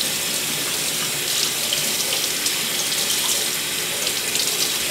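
Kitchen faucet running steadily, its stream splashing over a spiral ham held under it in a stainless steel sink.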